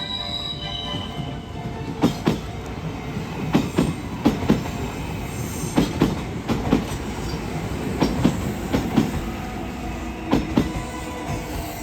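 A Kintetsu electric train running over the level crossing by the station, a steady rumble with sharp wheel clacks coming in pairs every second and a half to two seconds as each bogie's wheelsets cross the rail joints and crossing.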